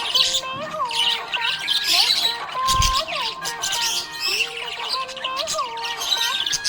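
Budgerigars chirping and chattering over background music with a gliding melody. A brief low thump comes about three seconds in.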